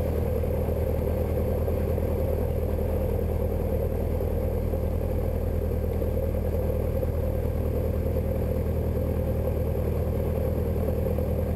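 Robin DR400's piston engine and propeller running at low taxi power, heard inside the cockpit as a steady, even drone.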